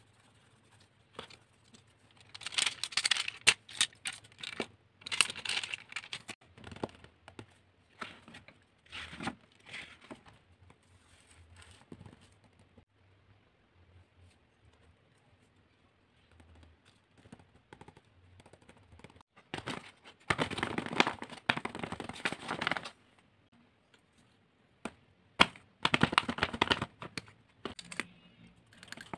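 Sheets of drawing paper and paper cutouts handled and rubbed by hand: rustling and scraping in several bursts of a second or two, with sharp clicks and taps between them and quiet gaps.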